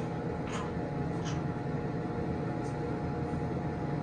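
Elevator car running: a steady low hum and rumble with a faint whine, and a couple of faint ticks about half a second and a second in.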